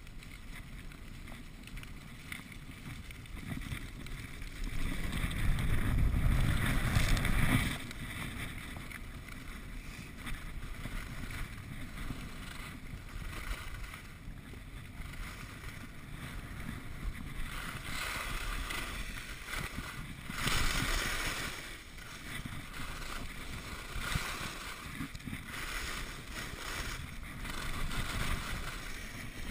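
Skis sliding and scraping over packed snow, with wind rushing over the microphone of a skier's mounted camera. It swells into a louder rush about five seconds in and again briefly about twenty seconds in.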